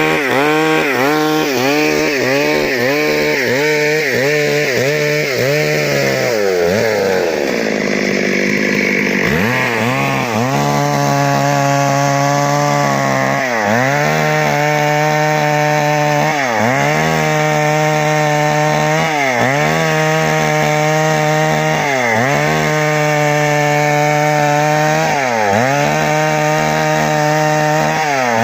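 Stihl MS 382 two-stroke chainsaw, its stuck piston just repaired, running at high revs while test-cutting wood. The engine pitch sags and recovers over and over: quickly at first, then one long deep drop about a quarter of the way through, then a sag every few seconds.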